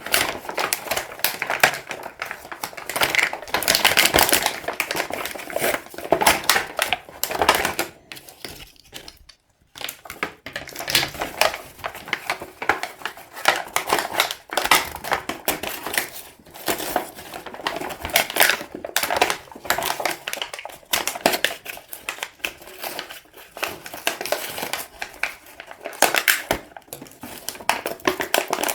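Hands unwrapping and handling toy packaging: a dense, irregular run of crinkling plastic wrapper, clicks and taps, with a brief pause about nine seconds in.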